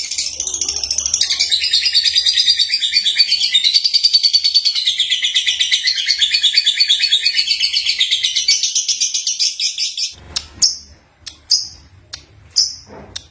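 Young lovebird (Agapornis) singing: a fast, unbroken high-pitched chatter for about ten seconds, then a few separate short chirps.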